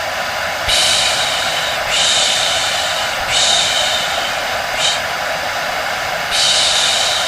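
Repeated long 'shh' shushing, about one every second and a half, over the steady whir of a hair dryer with a thin, even hum.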